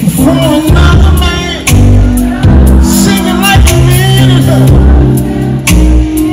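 Live R&B concert music: a band with heavy bass and drums under a singer's voice.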